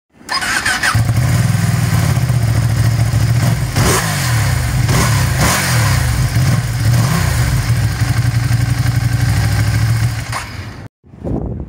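Ducati Panigale V2's L-twin engine idling, with a few quick throttle blips about four to five seconds in; the sound stops abruptly near the end.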